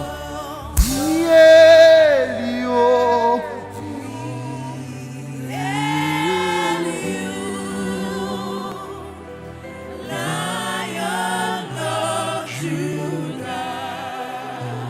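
Gospel worship singing: sustained, wavering vocal lines over a held keyboard chord, with a loud sudden onset about a second in as a voice comes in high and strong for a moment.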